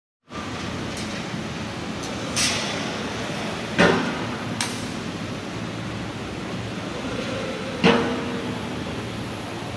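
Pneumatic wire mesh welding machine running: a steady mechanical din with two sharp clanks about four seconds apart, and short hisses of air in between.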